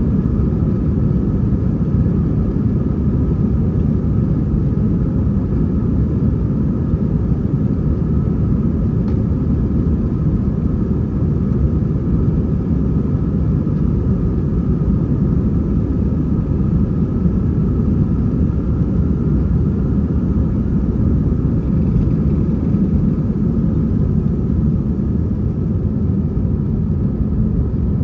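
Steady low rumble of an Airbus A321-231's IAE V2500 engines heard inside the passenger cabin, with faint steady whining tones above it.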